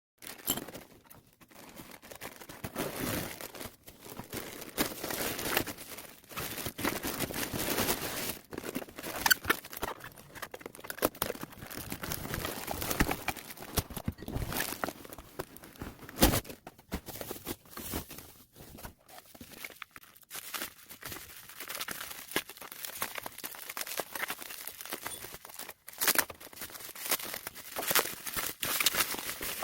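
Irregular crinkling and rustling with scattered small knocks and clicks, as of things being handled by hand.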